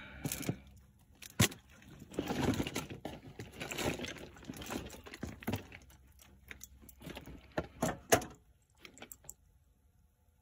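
Puppies play-fighting: scuffling and scratching with scattered clicks and a couple of sharp knocks, busiest in the middle and dying down near the end.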